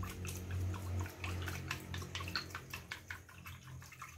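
Chopsticks whisking raw blood in a china bowl: rapid clicks of the sticks against the bowl with liquid sloshing, as the blood is beaten with water for tiết canh.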